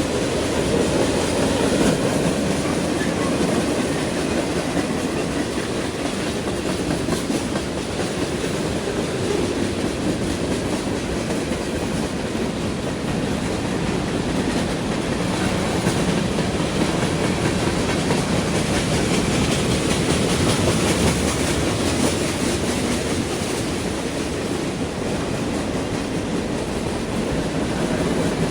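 A train rolling past close by, its cars' wheels running on the rails in a steady, loud, continuous noise that neither builds nor fades.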